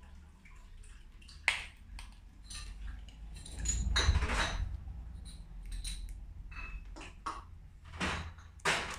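Glass bottles and brewing equipment being handled, clinking and knocking against each other in scattered sharp knocks, with a longer noisy stretch about four seconds in.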